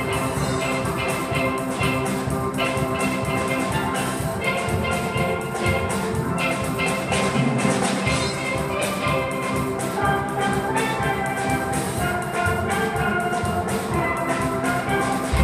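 Steel pan ensemble playing, many pans struck together in a quick, steady rhythm.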